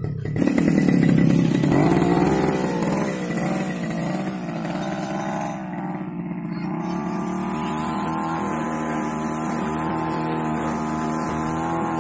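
Backpack brush cutter's small petrol engine running. Its speed rises and falls over the first few seconds, then it settles to a steady run.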